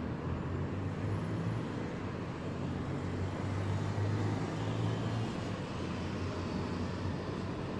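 Low rumble of distant thunder, swelling about halfway through and then easing back.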